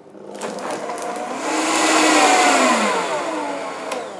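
Optimum 9900 high-speed blender blending soup: the motor whine rises as it speeds up, peaks about two seconds in, then falls away as it winds down. A click near the end.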